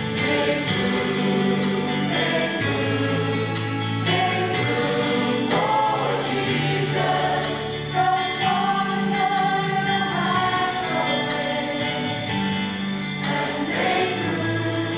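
A choir singing a Christmas gospel-style song over instrumental accompaniment, with a sustained bass line under the voices.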